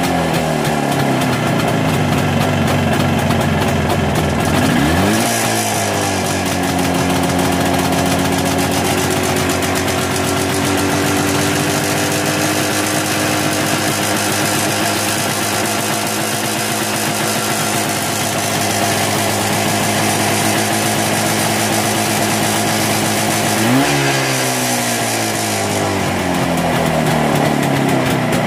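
1983 Jawa 634's 350 cc two-stroke twin engine running on the stand. Its revs die away slowly after a throttle blip, then another quick blip about five seconds in settles into a steady idle. A second blip near the end falls back slowly before the revs pick up again.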